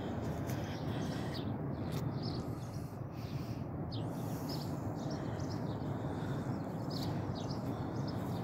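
Outdoor garden ambience: a steady low rumble with faint, scattered bird chirps.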